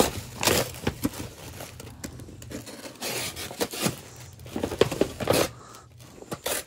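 A box cutter slicing and hands tearing open a soft, water-soaked cardboard shipping box, in irregular strokes of ripping and scraping with some crinkling.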